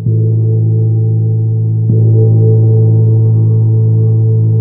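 Large gong played with a soft mallet: two gentle strokes about two seconds apart, each swelling a deep, sustained ringing tone that hangs on steadily between them.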